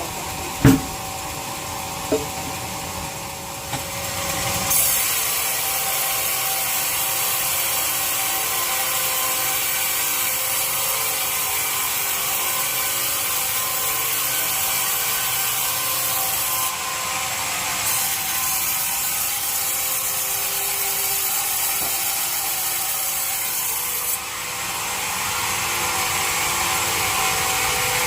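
Sawmill bandsaw cutting a teak log: a few sharp knocks, then from about five seconds in a steady high hiss of the blade through the wood over the machine's steady hum, easing briefly twice.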